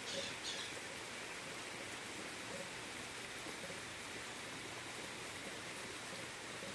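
Steady rain falling, an even hiss, with two short higher-pitched sounds in the first second.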